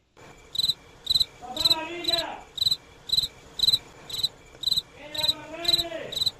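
A passing street vendor's signal: a high electronic beep repeating about twice a second, with a man's voice calling out twice in long, drawn-out cries.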